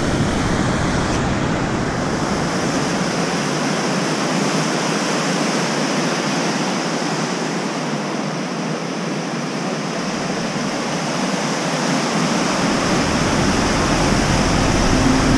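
Steady rush of a swollen mountain river running high in whitewater.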